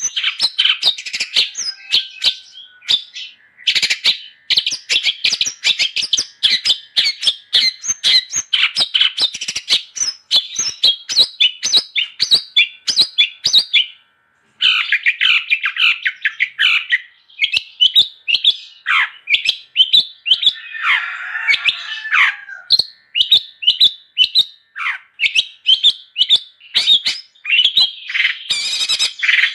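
Long-tailed shrike (cendet) in full song: a fast, dense run of sharp chattering notes and harsh squawks, with a brief silent break about 14 seconds in.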